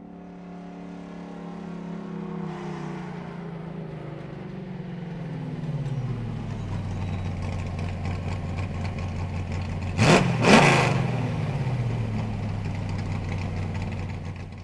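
A motor vehicle engine sound effect. The engine's pitch falls steadily over the first six seconds or so, as if it is winding down from revs, and then it runs at a steady low pitch. Two sudden loud bursts of noise come about ten seconds in, and the sound cuts off abruptly just before the end.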